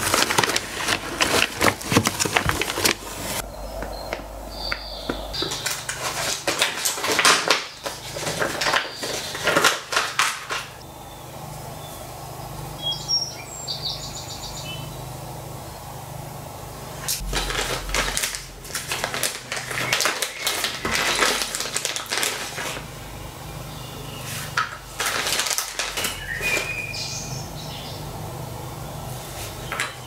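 Clear plastic packaging bags crinkling and rustling as they are handled, in several bursts of crackling with quieter gaps between.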